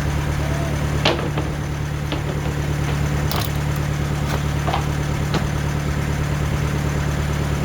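Diesel engine of a Timberking 2000 sawmill idling steadily, with half a dozen sharp knocks and clicks scattered through the middle.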